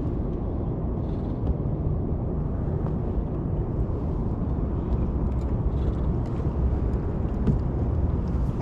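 Steady low rumble of wind buffeting the microphone, with a few faint small clicks.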